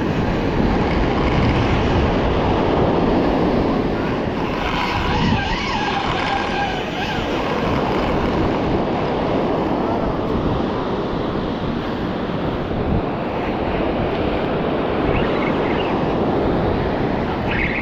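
Strong wind buffeting the microphone over ocean surf washing on the rocks: a steady, loud rush of noise.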